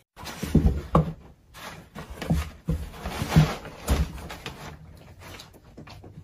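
Cardboard box knocked and jostled, a run of dull thumps with rustling and scuffling in the first four seconds, then softer taps.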